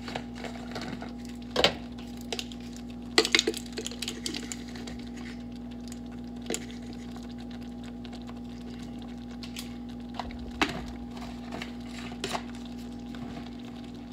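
Scattered light clicks and taps of a plastic Parmesan cheese shaker and a measuring spoon as grated cheese is shaken out and tipped into a pan of sauce, with a quick cluster of clicks a few seconds in. A steady low hum runs underneath.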